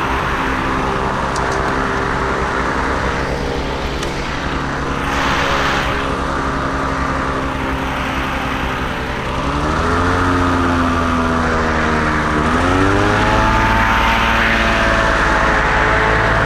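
Boat engine running steadily at low speed, then revving up about two-thirds of the way in and again a few seconds later, and holding at the higher speed.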